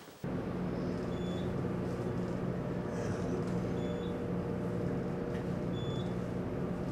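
Steady low hum inside a moving elevator car, starting suddenly at a cut, with short faint high beeps about every two and a half seconds.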